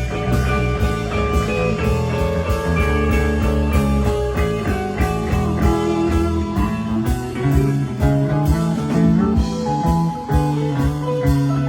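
Live rock band playing an instrumental jam: guitar lines over a steady drum beat and low bass notes.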